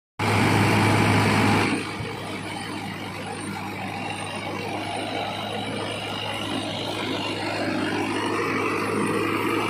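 Sonalika tractor's diesel engine running with a straw reaper, a steady low drone. It is louder for the first couple of seconds, then drops and runs on evenly, slowly growing louder.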